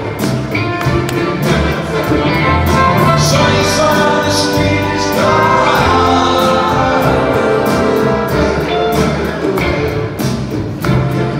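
Live rock band with an orchestral string section playing: electric guitar, piano, upright bass and drums over a steady beat, heard from the audience in a concert hall.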